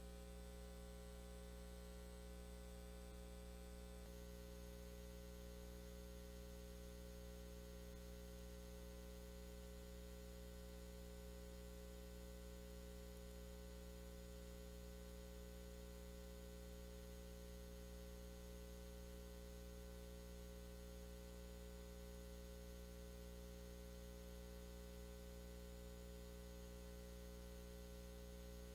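Near silence apart from a faint, steady electrical mains hum with hiss.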